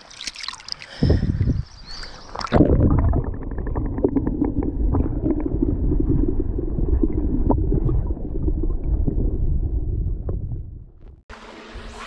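Water splashing as a large brown trout is lowered from a landing net into a river, then a muffled underwater rumble and gurgle with small ticks, heard from below the surface while the fish is held for release. Near the end it cuts sharply to the quieter open-air hiss of the stream.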